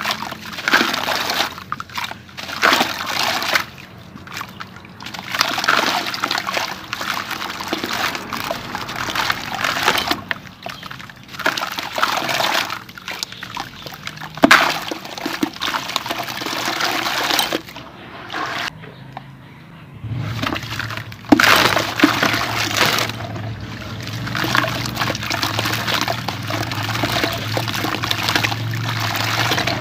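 Blocks of dried sand-cement crumbled by hand over a bucket of water: gritty crunching with crumbs and grit trickling and splashing into the water, in irregular bursts with sharp cracks among them.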